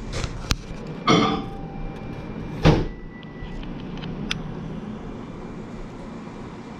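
Pieces of LED tape and a soldering tool being handled on a work surface: a sharp click, two short scraping rustles (the second the loudest) and a few light ticks over a steady low hum.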